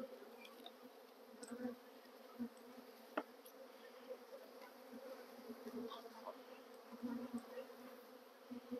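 Honeybees buzzing around an opened hive, a faint, steady hum, with a few soft clicks and one sharper tick a little after three seconds in.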